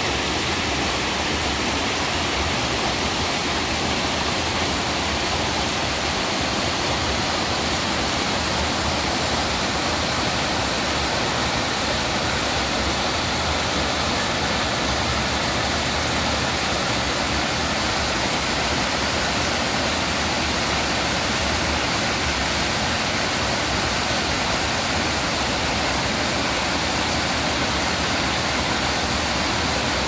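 Waterfall in a mountain stream, rushing steadily, the water running high after rain.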